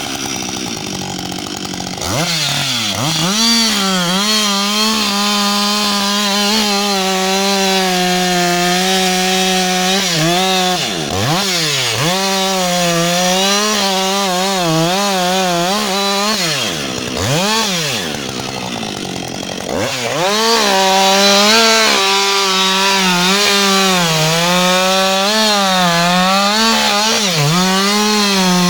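Husqvarna 560XP two-stroke chainsaw cutting into the trunk of a standing tree. The engine revs up about two seconds in and then runs under load, its pitch wavering as the chain bites. A few times the revs fall away briefly and climb back.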